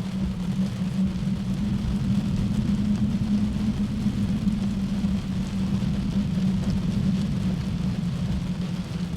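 Steady rain sound effect with a continuous low rumble under it.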